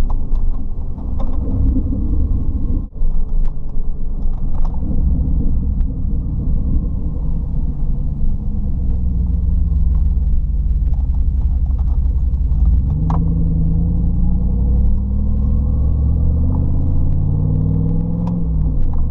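Jeep engine running with a steady low rumble, rising in pitch as it is revved about two-thirds of the way through and again near the end.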